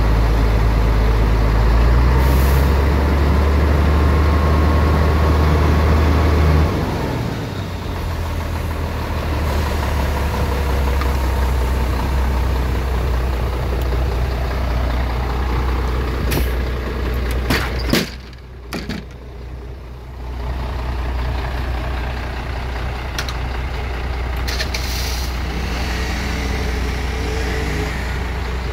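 MAN 19.422 truck's diesel engine idling steadily, heard close up in the engine bay with the oil filler open. The low hum drops a little about a quarter of the way through, and a few knocks and a short quieter stretch come about two-thirds through.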